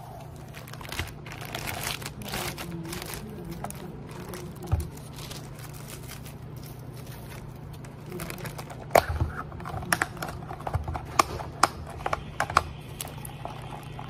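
Thin plastic bag crinkling as it is handled, with a run of sharp clicks and taps in the second half, over a steady low hum.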